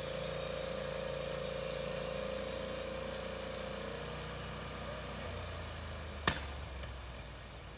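Norwood HD36 portable sawmill's engine running steadily, with a higher whine that fades away after about four seconds. A single sharp knock comes near the end, and the engine sound then drops off.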